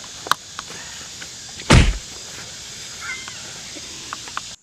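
Steady outdoor background hiss with a few sharp clicks and one heavy, dull thump a little under two seconds in. The sound cuts off abruptly near the end.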